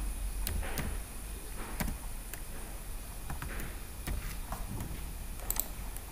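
Computer keyboard keystrokes and mouse clicks: about ten separate sharp clicks at irregular intervals, over a faint steady low hum.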